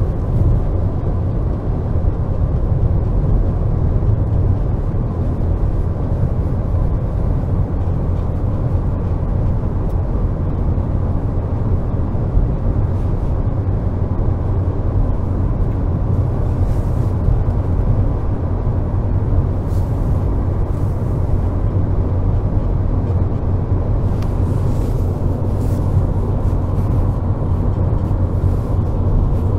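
Steady drone inside the cabin of a Renault Logan cruising on the highway: its 1.6 eight-valve K7M petrol engine held at about 2500 rpm in fifth gear with the throttle steady, together with road noise.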